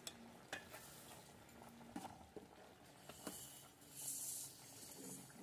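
Faint stirring of a simmering stew in an aluminium pot with a metal spoon: a few scattered light clinks and scrapes of spoon against pot. There is a brief soft rustle about four seconds in.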